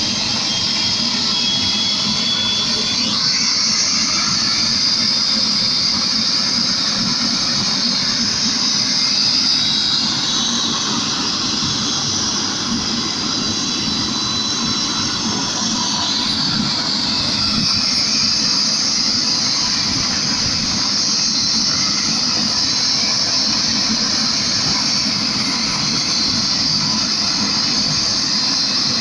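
Helicopter turbine engine running on the ground: a steady high whine over a broad rushing noise, which dips for a few seconds about halfway through.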